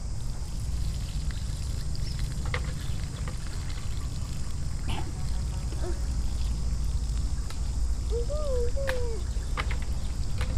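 Rice-rinsing water trickling from a tilted metal pot as the washed rice is drained onto the ground, over a steady low rumble. A short wavering call sounds once about eight seconds in.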